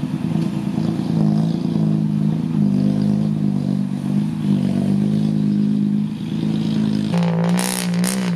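Six-wheel dump truck's engine running steadily. About seven seconds in, the sound changes abruptly to a wavering engine note with bursts of clatter and rattle.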